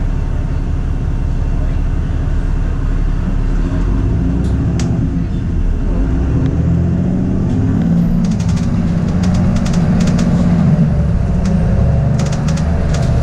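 Bus engine running with steady road rumble, the engine note growing stronger around the middle, with bursts of rattling clicks in the second half.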